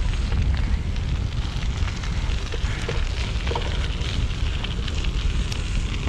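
Wind rumbling on a bike-mounted action camera's microphone while cycling, a steady loud low roar mixed with tyre and road noise. A few faint clicks come from the Rubik's cube being turned.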